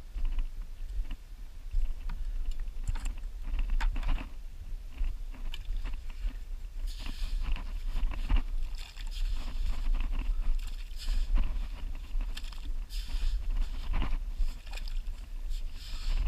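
Short shovel digging into packed wet sand and mud of a clam bed: irregular chopping and crunching strokes, with louder gritty scrapes from about halfway through, over a steady low rumble of wind on the microphone.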